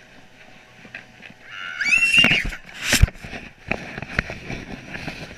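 A toddler's short high-pitched squeal about two seconds in. It is followed by a sharp knock and a few lighter clicks and taps as things are handled.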